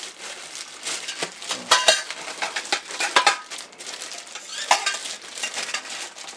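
Metal and plastic garment-rack parts being handled and knocked together: an irregular clatter of rattles and clinks, with a few sharper metallic clinks that ring briefly, the loudest about two seconds in and near the five-second mark.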